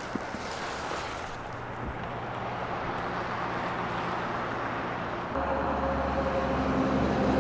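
Road traffic: a steady rush of passing vehicles. About five seconds in, a vehicle's engine hum comes in low and steady and grows a little louder toward the end.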